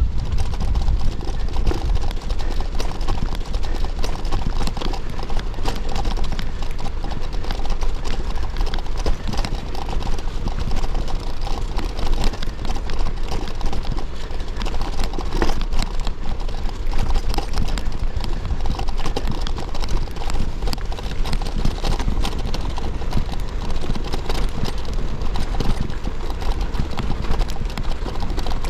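Rose Backroad AL gravel bike rolling slowly over snowy, icy ground: a steady stream of crunching and small rattling clicks from the tyres and frame, over a low rumble.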